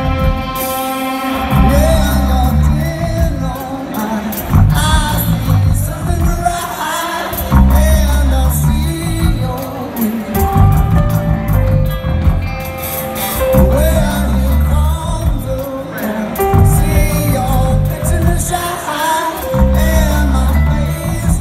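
Rock band playing live: a man sings lead over electric guitars and drums.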